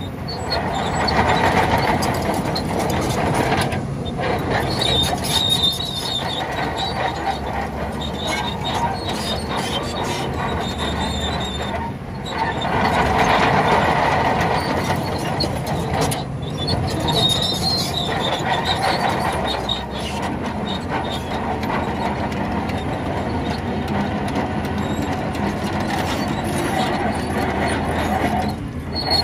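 Crawler bulldozer at work: the diesel engine runs under a steady mechanical noise while the steel tracks squeal in several stretches, the level swelling and falling as it moves.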